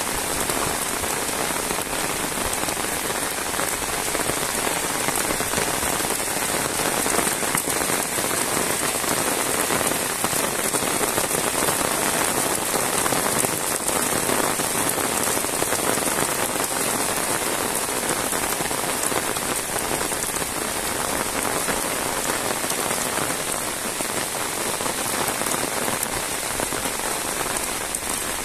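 Heavy rain falling steadily on a wet paved road and the grass and leaves beside it, an even hiss with no let-up.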